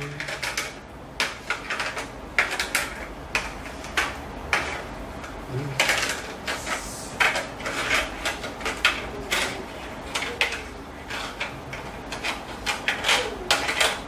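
Irregular plastic clicks and clattering from a handheld LEGO magnetic maze, as a magnet under the board drags the game piece along and knocks it against the brick walls.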